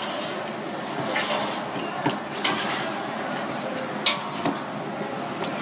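Cleaver chopping soft striped meat on a wooden chopping block: a handful of irregular sharp chops, the loudest about four seconds in, over a faint steady hum.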